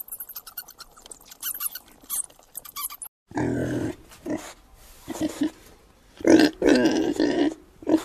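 A rat's rapid high squeaks, then, after a cut about three seconds in, a bearded pig giving a run of low, short grunts, the loudest near the end.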